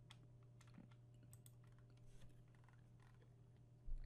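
Faint, scattered computer keyboard and mouse clicks as a value is typed into a field, over a steady low electrical hum. A single low thump near the end.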